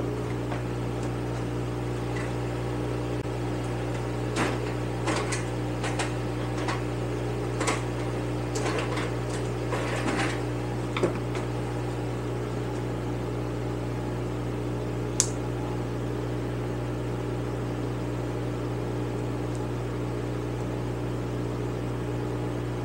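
Scattered clinks and knocks of hand tools being picked up and set down over a steady electric motor hum, with one sharp click about fifteen seconds in.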